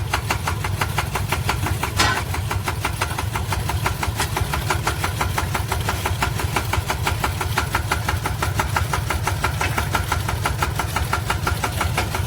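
Engine of a homemade rice-field sprayer running steadily with an even beat, with one sharp click about two seconds in.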